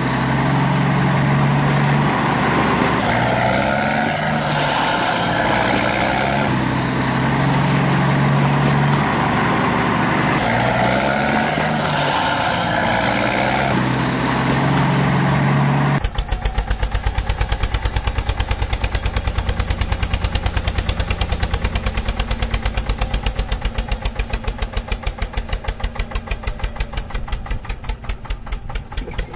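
Dubbed-in truck engine sound effect running steadily, a looped clip that repeats its pattern every few seconds. About halfway through it cuts abruptly to a tractor engine effect chugging in a fast, even beat, which fades out near the end.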